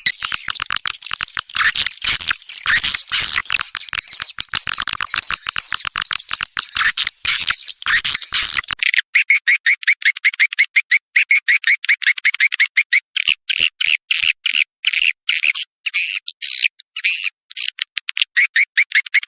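Swiftlet lure-call recording: dense, rapid twittering chirps of swiftlets, the calling sound played in swiftlet-nest houses to draw the birds in. About nine seconds in, the lower part of the sound drops away, leaving only the higher chirps.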